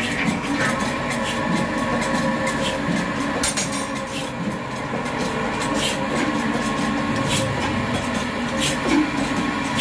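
Old Ruston Hornsby stationary diesel engine running steadily, its large flywheel spinning, with a steady mechanical hum and a sharp knock every second or so.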